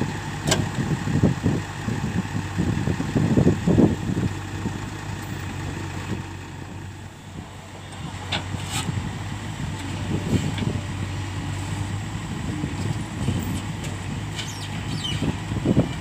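JCB 3DX backhoe loader's diesel engine running steadily, with irregular low clunks and rumbles and a few sharp metallic knocks as the backhoe bucket digs into the soil.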